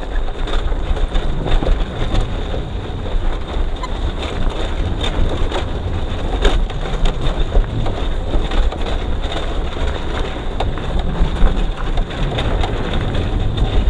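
Motorcycle riding over a rough dirt road: heavy wind buffeting on the microphone and a steady rumble, with many small knocks and crunches from the tyres on gravel.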